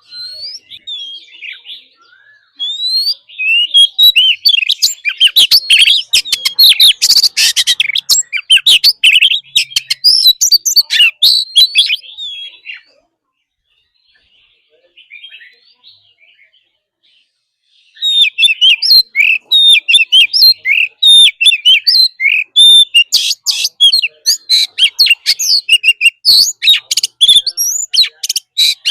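Oriental magpie-robin singing loud, varied phrases of whistled notes mixed with rapid harsh chattering. The song breaks off for about five seconds in the middle, then starts again just as loud.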